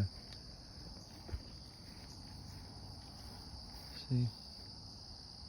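Crickets trilling in a steady, high-pitched chorus, with a single light knock about a second in.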